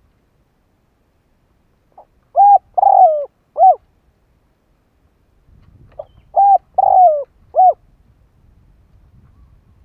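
Spotted dove cooing twice, about four seconds apart. Each phrase is a faint short lead note and then three coos, the middle coo longest and falling in pitch. It is the call of a decoy dove, used to provoke and lure wild doves.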